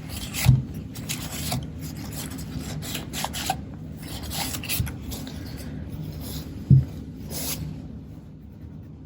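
Wiping the glass of a Kodak Instamatic 100's lens and viewfinder clean of Windex: a series of short rubbing strokes, with two light knocks, one about half a second in and one near seven seconds.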